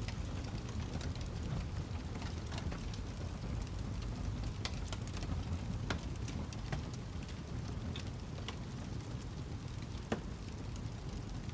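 Wood fire crackling: a steady low rumble of flames with irregular sharp pops and snaps, the loudest pop about ten seconds in.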